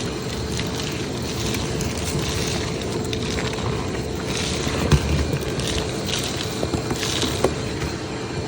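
Vacuum cleaner running with a steady motor hum, sucking up dryer lint with scratchy rustling, and a short knock about five seconds in.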